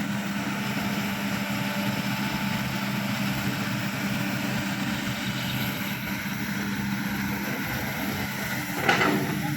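Large excavator's diesel engine running steadily with an even hum. A short, louder sound stands out near the end.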